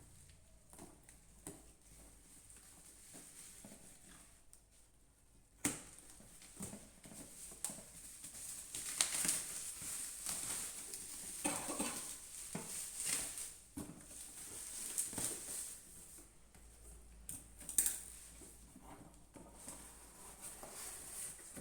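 Hands handling and unpacking a package: irregular rustling, taps and clicks, busiest in the middle, with a sharp knock about six seconds in and another about eighteen seconds in.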